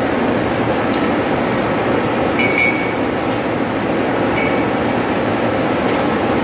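Metal hand tools clinking against a pump's bolts and flanges a few times, with short metallic rings, over a steady mechanical hum of running machinery.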